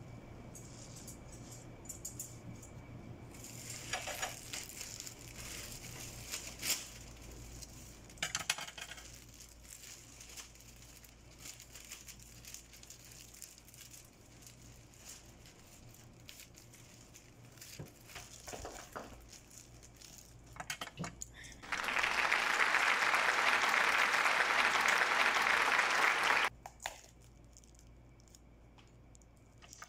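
Hand-handling sounds of bouquet-making: foil-wrapped chocolates on sticks rustling and clicking, with scattered small crinkles and taps. About 22 s in comes a loud, steady hiss lasting about five seconds that starts and cuts off abruptly.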